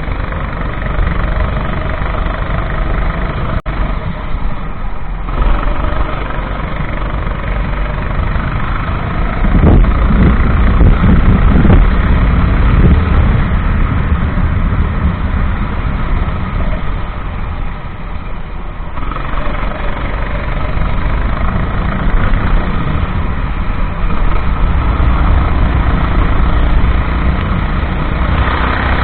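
Racing go-kart engine running hard, its pitch rising and falling as it revs up and back off, under a heavy rush of wind and road noise.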